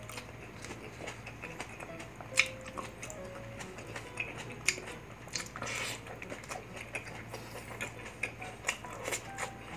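A person chewing food close to the microphone, mouth closed, with wet smacks and sharp clicks throughout. Quiet background music plays under it.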